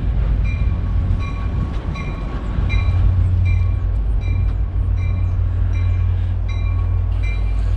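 Commuter train arriving at a station: a steady low rumble from the train, with a bell ringing about every two-thirds of a second.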